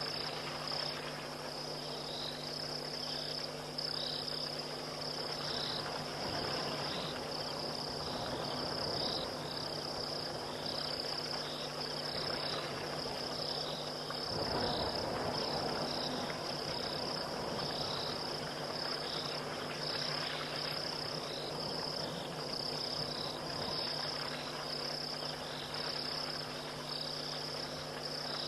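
Night insect chorus: crickets trilling steadily in a high band, with another insect chirping in regular short pulses below it, over a low steady hum. A brief rush of noise swells about halfway through.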